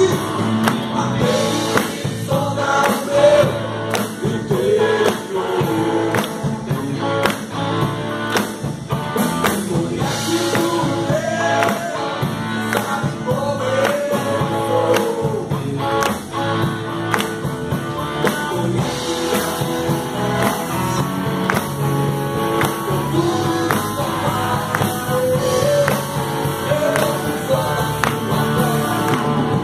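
Live rock band playing: drum kit beating steadily under electric guitars and bass, with a man singing a melody into a microphone over it.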